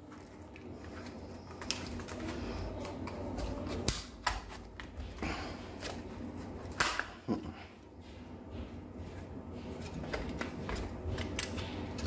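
Plastic housing of a Havells battery doorbell being pried open and unclipped by hand: scattered clicks and plastic rattling, with a few sharper snaps as the cover comes loose.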